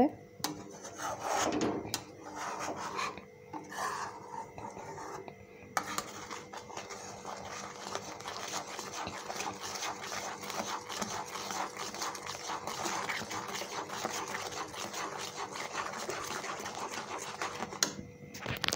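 Flat spatula scraping the bottom of a metal pan while stirring thickening milk and sugar. Separate strokes at first, then from about six seconds in a quick, continuous rasping scrape that stops shortly before the end.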